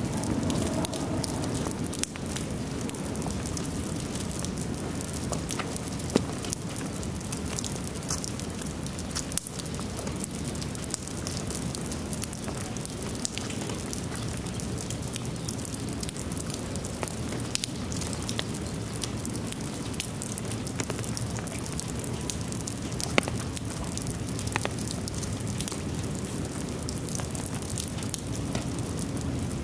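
Steady rain falling, with many small sharp drop clicks and a few louder single hits scattered through.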